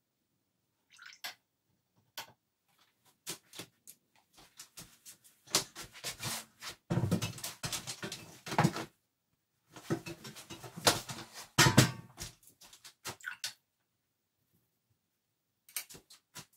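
A paintbrush being rinsed in a jar of water: two spells of swishing and clattering against the jar, with a few scattered clicks before and after.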